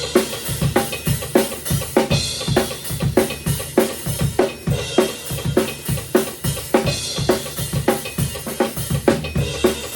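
Drum kit alone playing a driving rock beat: bass drum and snare hits in a fast, steady rhythm under constant cymbal wash, with a metronome click track.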